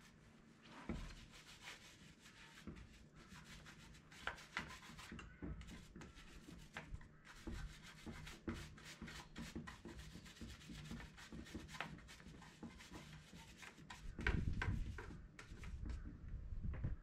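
Faint, irregular scrubbing strokes on a mountain bike's frame and drivetrain as it is washed, with a louder low rumble near the end.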